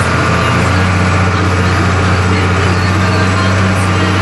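Fiat 1000 Super tractor's diesel engine running steadily under load while pulling a plough, a deep, even drone.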